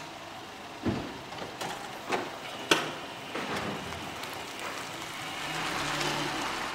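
A small car driving slowly past, a steady noise of engine and tyres with a faint low hum, broken by a few sharp knocks about one, two and nearly three seconds in.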